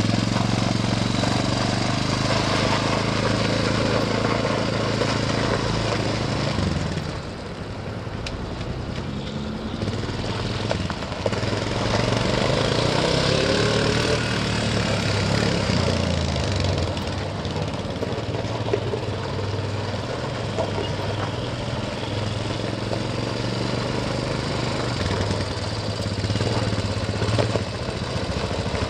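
A 1998 Honda Recon TRX250 ATV's single-cylinder four-stroke engine running steadily. It eases off about seven seconds in and picks up again a few seconds later.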